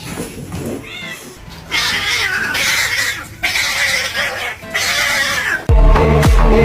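A cat meowing: one short meow about a second in, then three longer cries in a row. Near the end loud electronic music with a heavy bass starts suddenly.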